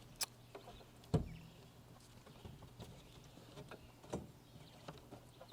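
A few light clicks and knocks of handling, with one louder knock about a second in.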